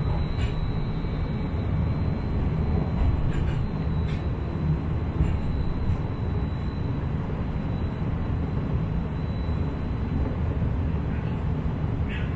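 Inekon Trio Type 121 streetcar running, heard from inside the car: a steady low rumble of wheels on rail and running gear, with a thin steady high tone over it and a few faint ticks.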